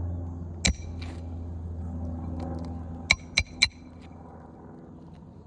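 Hammer driving 1¼ inch roofing nails. One blow comes about half a second in, then three quick blows about three seconds in, each with a short metallic ring, over a steady low hum.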